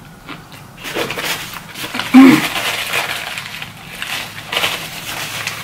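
Paper napkin rustling and rubbing as hands are wiped clean, with a brief vocal sound about two seconds in.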